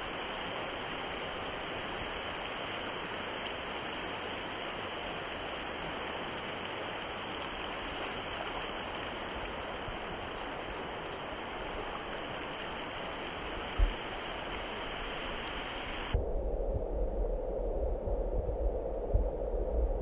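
Shallow stream running over a stony bed, a steady rushing hiss, with a single knock about two-thirds of the way in. Near the end the hiss cuts out abruptly, giving way to a low, uneven rumble with knocks.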